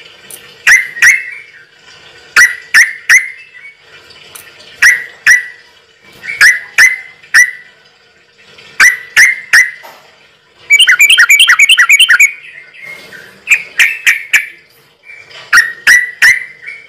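A bird calling: loud, sharp chirps in groups of two or three about every two seconds, with a fast trill of about eight notes a second lasting a second and a half midway.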